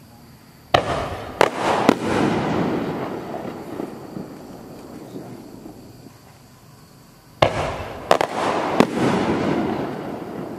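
Two 7-inch canister firework shells going off, one about a second in and one about seven seconds in. Each is a sharp bang followed by two smaller cracks and a rumbling echo that dies away over a few seconds.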